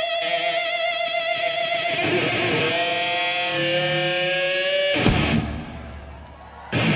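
Live electric guitar solo on a Les Paul-style guitar with the band behind it: a long sustained note with vibrato, then notes bent slowly upward. About five seconds in the band hits a sharp accent and drops back briefly, then comes in loud again near the end.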